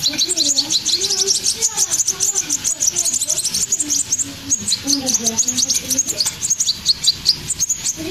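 Several hand-reared fledgling songbirds calling together in a rapid, overlapping run of short, high chirps, the begging calls of young birds that are hand-fed.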